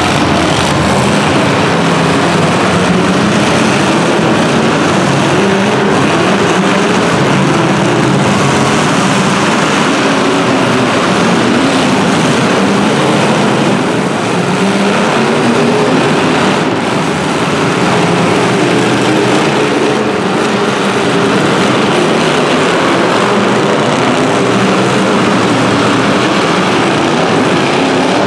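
Several demolition derby cars' engines running and revving together, their pitches rising and falling against one another in a loud, continuous din.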